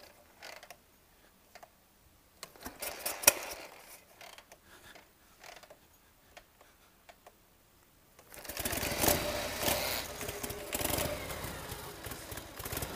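A kick-start-only custom Harley-Davidson chopper's big-twin V-twin being kicked over, with a sharp knock of the kick lever about three seconds in. About eight seconds in the engine fires and settles into a rhythmic, evenly pulsing idle.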